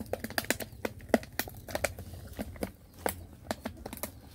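Dry leaves and twigs crackling and snapping in quick, irregular clicks as puppies paw and nose through the leaf litter.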